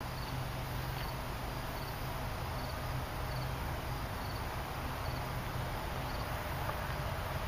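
Insect chirping outdoors, typical of a cricket, with short repeated chirps a little more than once a second. A steady low hum runs underneath.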